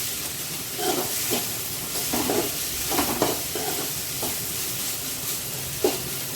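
Onions and ginger-garlic paste sizzling in sesame oil in a pan while a spatula stirs them, scraping the pan in short strokes every second or so over a steady frying hiss.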